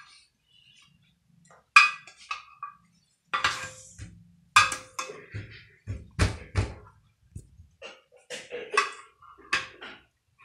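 Kitchen utensils knocking and clinking against dishes: about ten irregular strikes, a few with a dull thud.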